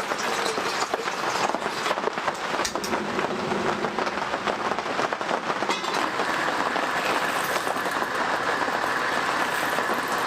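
Heavy rain falling on a tent, a dense, steady patter of many close drops.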